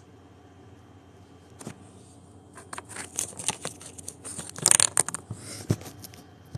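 Phone handling noise: a run of clicks, rubs and scratchy knocks as the phone is moved and shifted against the microphone. It starts about a second and a half in, with the loudest rub a little past the middle.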